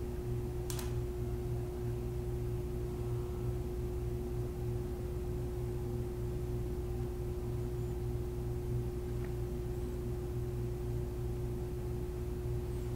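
Steady electrical hum holding one constant tone throughout, with a light click about a second in.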